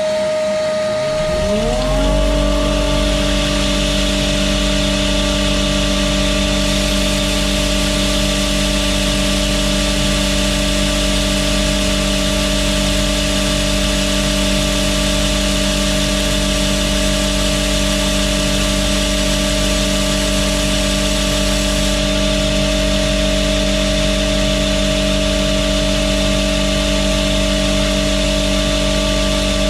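Knifemaking belt grinder starting up about a second in, its motor spinning up over a second or so and then running steadily, alongside another motor that is already running.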